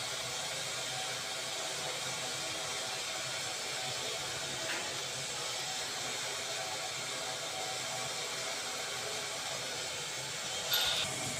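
Steady, even hiss with a faint hum under it, the constant background noise of a kitchen, with a brief clink near the end.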